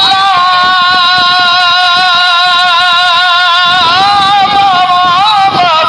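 A singer holds a long high note with a wavering vibrato, slides up to another held note a little before four seconds in, then falls away near the end, in a folk song.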